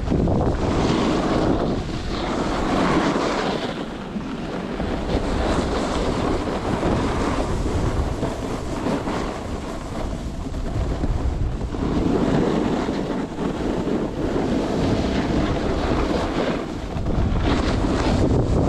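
Wind buffeting the microphone during a snowboard run, a steady low rumble with the hiss of the board on snow swelling and fading every few seconds.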